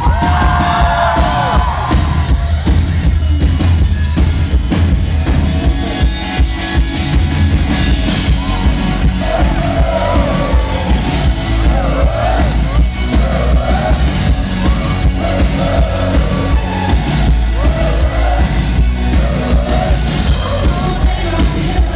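Live pop-rock band playing loud through a hall PA: pounding drums and heavy bass, with a female lead voice singing from about eight seconds in.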